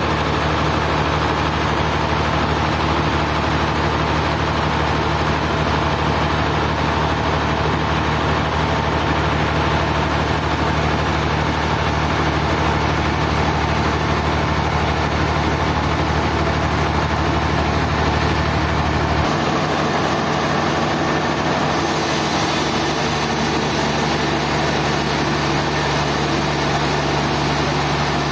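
Sawmill machinery running steadily: a low motor hum under a dense whirring noise, with the lowest part of the hum dropping away about two-thirds of the way through.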